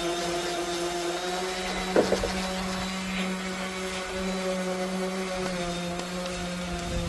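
Steady motor hum from a running machine, with a sharp knock about two seconds in and a lighter one just after.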